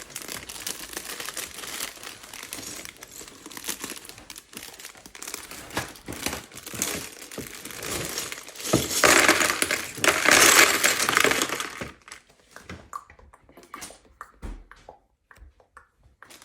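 Plastic packaging crinkling and rustling as a Lego box is unpacked by hand, loudest about nine to eleven seconds in. It stops about twelve seconds in, giving way to scattered small clicks and clinks of handled pieces.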